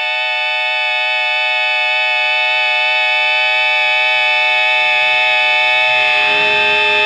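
A held, distorted electric guitar chord ringing steadily and slowly growing louder. Near the end a lower note and some low rumble join in.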